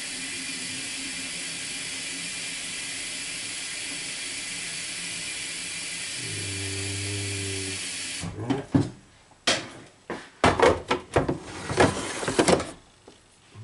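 A steady hiss runs for about eight seconds, joined by a low hum near its end, then cuts off. A string of irregular clicks and knocks follows as the opened coffee machine's plastic parts are handled.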